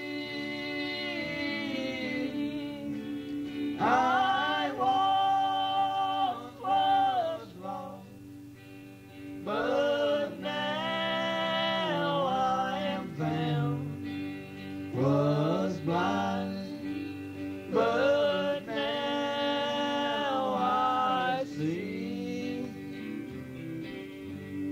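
Gospel song by a singing group: sung melody phrases that rise and fall over steady held instrumental accompaniment, with short breaks between phrases.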